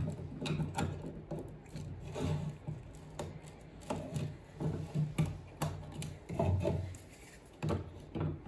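Handling noise from a Stihl trimmer head being reassembled: nylon line rubbing as it is fed out, the plastic spool set into its housing and the cover fitted, with scattered light clicks and knocks against a wooden bench.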